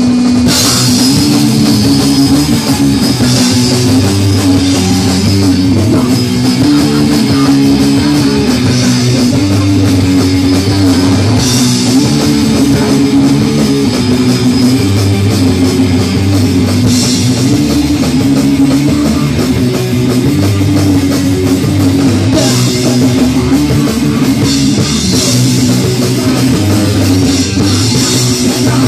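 Anarcho-punk band playing live and loud: distorted electric guitar and electric bass riffing over a drum kit with crashing cymbals. The full band comes in about half a second in, after a single held low note.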